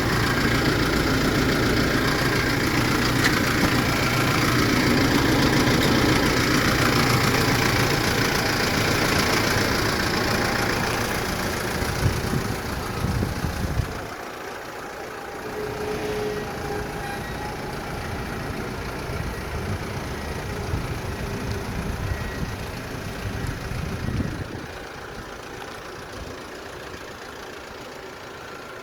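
A 2009 Kia Bongo refrigerated truck's engine idling steadily. It is louder for about the first half, then drops to a lower level.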